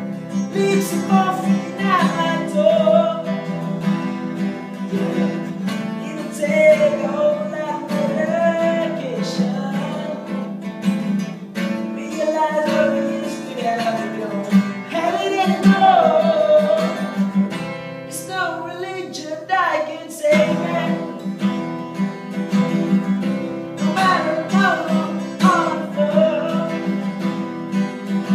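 Two acoustic guitars played together, strummed and picked, with a voice singing a melody over them. The guitars thin out briefly about two-thirds of the way through, then come back in.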